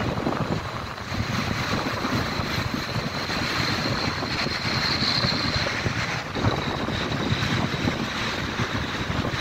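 Wind buffeting the microphone, a gusty rumble over steady city traffic noise, with a faint steady high-pitched whine.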